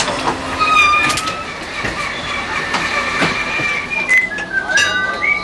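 Tram running through a track junction and round a curve: the wheels squeal in high, drawn-out tones that slide in pitch, over the running noise, with scattered clicks and knocks as the wheels cross the switch and crossing rails.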